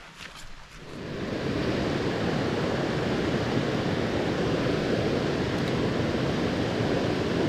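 Steady rush of stream water spilling over a low stone dam, starting abruptly about a second in. Before it, a few faint footsteps on a gravel path.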